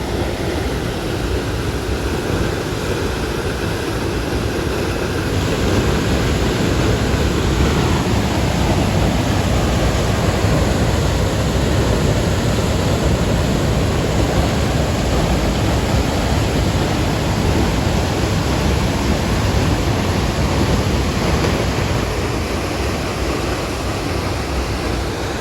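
A large waterfall's steady rush of falling water, a dense, even noise that grows a little louder about six seconds in.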